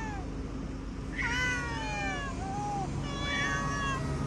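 Hungry stray cats meowing to be fed: one long meow that falls in pitch, starting about a second in, then a shorter, fainter meow near the end.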